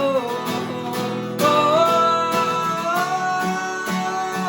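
Worship band music led by strummed acoustic guitar, with no sung words. A long held note comes in about a second and a half in and sustains over the guitar.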